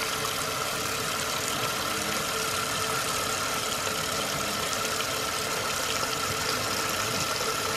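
Tap water running in a steady stream onto live snails in a plastic colander, splashing continuously as they are rinsed clean.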